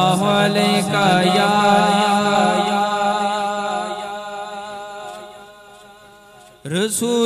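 Unaccompanied vocal singing of a Punjabi naat: a long held, slightly wavering note fades away over the second half. A new sung phrase starts abruptly near the end.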